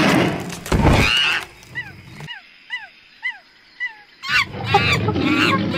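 Wild animal calls: loud harsh calls, then a run of about five short falling chirps at roughly two a second, then harsh calls again about four seconds in.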